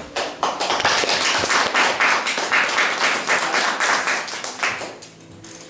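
Audience applauding, dense clapping that fades out about five seconds in.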